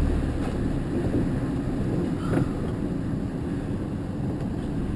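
Vehicle engine running steadily at low revs, heard from inside the cab during slow manoeuvring, with a faint click about two seconds in.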